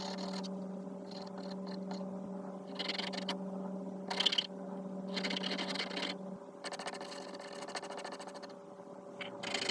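Pastel pencil scratching over textured pastel paper in short bursts of shading strokes with pauses between them. A steady low hum runs underneath and stops about two-thirds of the way through.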